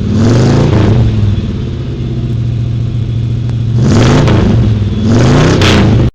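A car engine being revved in three surges, its pitch climbing and falling back each time, with a steadier running stretch between; the sound cuts off abruptly at the end.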